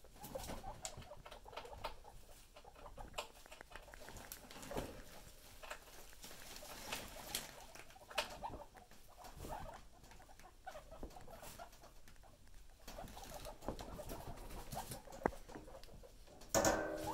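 Guinea pigs scurrying and hopping about their cage, feet pattering and rustling on bedding with scattered light taps. A brief louder pitched call comes near the end.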